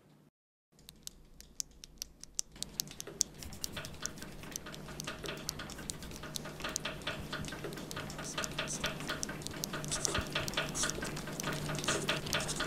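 Pencils scratching and tapping on paper and desktops: a few scattered clicks at first, growing denser and louder into a busy patter of small clicks and scratches, over a steady low hum.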